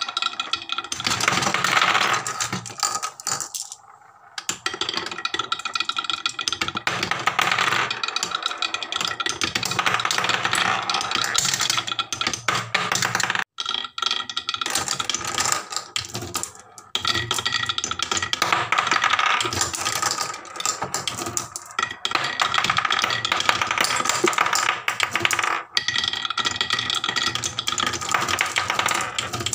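Marbles rolling and clattering along wooden HABA marble-run tracks and dropping through a wooden block. It is a near-continuous rattle of clicks and knocks, with a short lull about four seconds in.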